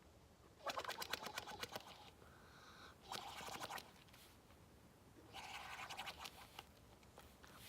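Slime bubbling and crackling as air is blown into it through a straw, in three short bursts of rapid popping.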